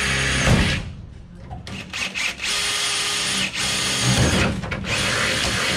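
Cordless drill boring up through a thin aluminium body panel in short runs: three spells of drilling of a second or so each, with gaps between. There is a knock during the first spell and another during the second.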